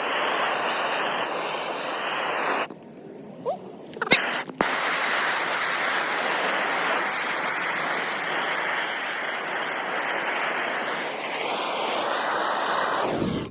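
Gas torch flame hissing steadily as it burns against a plastic toolbox. The hiss drops out about three seconds in, with a couple of sharp clicks, then resumes for about nine seconds and cuts off suddenly.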